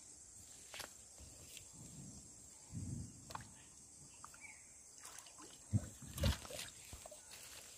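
River water sloshing and splashing around a rubber tyre inner tube as a man settles into it and paddles off, with two sharp knocks about half a second apart near the end.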